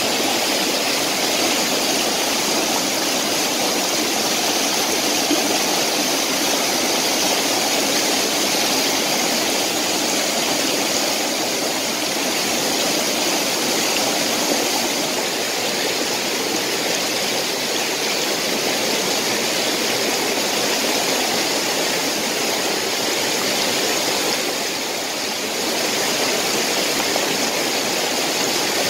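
Fast mountain stream rushing over rocks, a steady, unbroken wash of water noise.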